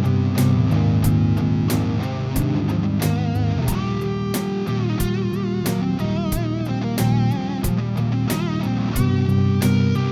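Instrumental guitar music: strummed chords over bass and a steady beat, with a lead guitar line of bent, wavering notes from about three seconds in until near the end.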